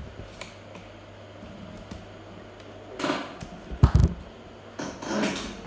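Phone handling noise as the phone is moved and repositioned: rustling, then a few sharp thumps about four seconds in, over a steady low hum.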